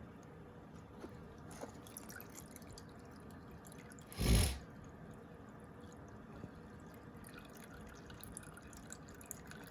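Gasoline dripping and trickling out of the moped's fuel tank into a container as the tank is drained, with one brief loud knock about four seconds in.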